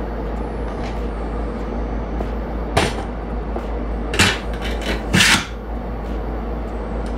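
Stainless steel lever-press French fry cutter clanking as its hinged handle and pusher are worked: three sharp metal clacks about three, four and five seconds in, the last one longer, over a steady background hiss.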